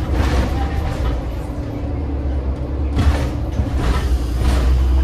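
Heuliez GX 137 city bus heard from inside, its Iveco Tector 7 six-cylinder diesel running with a steady low rumble. There are two brief rushes of hissing, rattling noise: one at the start and one about three seconds in.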